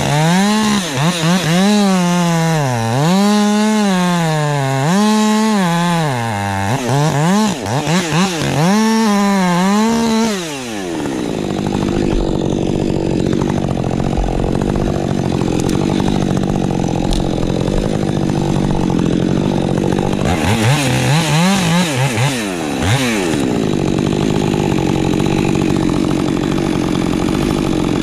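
Woods-ported Husqvarna 550 XP Mk II chainsaw on a 20-inch bar, revving up and down repeatedly for about ten seconds. It then runs steadily under load, with another short burst of revving a little past twenty seconds in.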